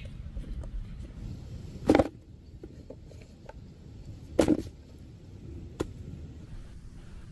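Two heavy chopping thuds about two and a half seconds apart, then a lighter knock, over a steady low rumble.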